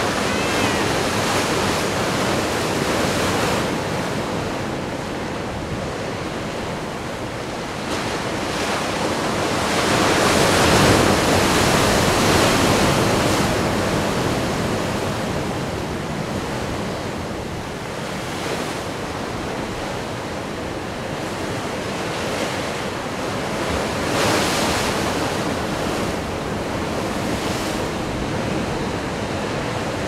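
Ocean surf: waves breaking and washing in as a steady rushing noise, swelling louder a third of the way in and again briefly later.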